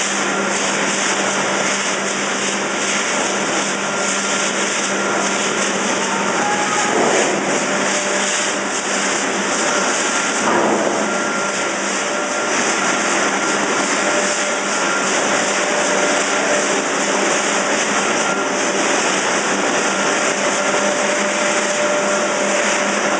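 Pet food extrusion production line machinery running: a steady mechanical din with a constant low hum and faint thin whining tones above it.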